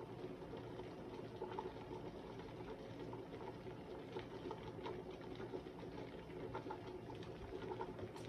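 Pot of red pea soup bubbling on the stove: a steady simmer with many small scattered pops over a low hum.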